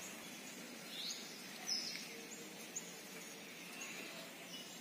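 A few birds chirping faintly over steady outdoor background noise, with short, high chirps about one to two seconds in.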